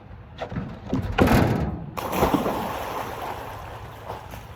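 A person jumping into a swimming pool: a loud splash about a second in, then water churning and sloshing that fades over the next two seconds.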